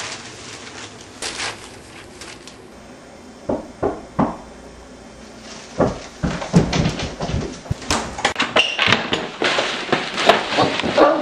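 Newspaper pages rustling, then a quieter stretch broken by a few sharp thumps, then a dense commotion of bumps, knocks and footsteps as several people burst in and scuffle.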